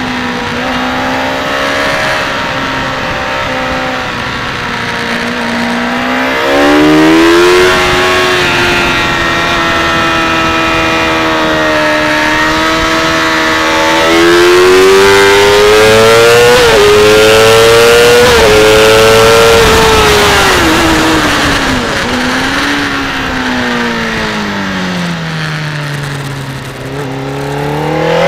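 Motorcycle engine at speed, with wind rushing past. It revs up in pitch under acceleration, with two quick upshifts around the middle, then winds down under braking and picks up again near the end.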